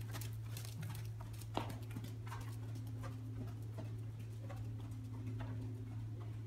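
Hoofbeats of a ridden horse trotting on soft arena footing: dull thuds a few times a second, loudest about a second and a half in, then fainter as the horse moves away. A steady low hum runs underneath.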